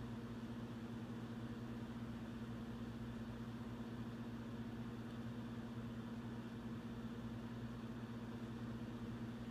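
Steady low hum in the room, two constant low tones over a faint even hiss, unchanging throughout.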